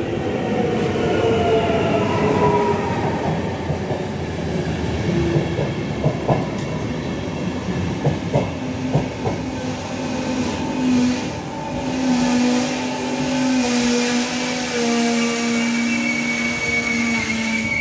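A RegioJet passenger train, hauled by an electric locomotive, rolls past the platform as it pulls in. The wheels rumble and clatter, with a run of sharp clicks over the rail joints in the middle. Through the second half, steady squealing tones from wheels and brakes come in as the coaches slow.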